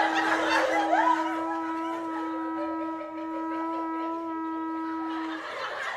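Background music: a sustained chord of steady held notes with a wind-instrument sound, which stops about five seconds in.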